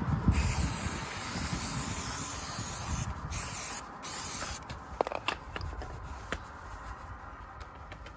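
Aerosol can of Muc-Off disc brake cleaner spraying onto a motorcycle brake disc: one long hiss, then two short bursts about three and four seconds in. After that comes a cloth rubbing the disc, with a few light clicks.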